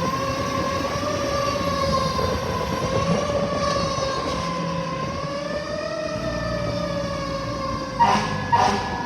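Fire truck siren wailing, its pitch holding and drifting slowly up and down. Two short horn blasts cut in near the end.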